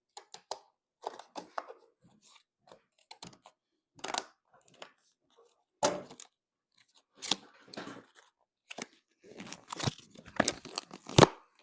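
Yo-yo retail packaging being cut and torn open with scissors: irregular crackling, tearing and crunching of plastic and card, growing busier near the end.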